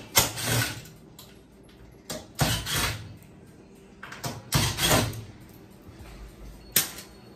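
Cordless drill-driver running in three short runs of about a second each, backing screws out of a washing machine's sheet-metal rear panel, with a short sharp click near the end.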